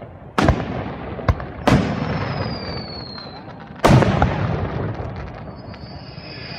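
Aerial firework shells bursting close overhead: four bangs, the loudest about four seconds in, each trailing off in a long rolling echo. A thin high whistle falls in pitch between the second and last bursts, and another begins near the end.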